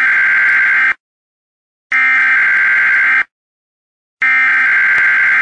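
Warning buzzer sound effect: three long, steady beeps, each a little over a second, with about a second of silence between them.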